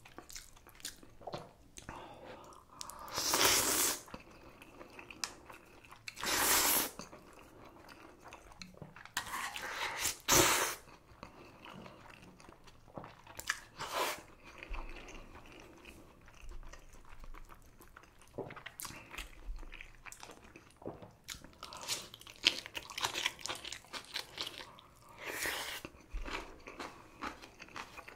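Close-up eating sounds of a person eating spicy naengmyeon noodles and kimchi: steady chewing with crunchy bites. Four louder noisy bursts, each under a second long, come at irregular moments.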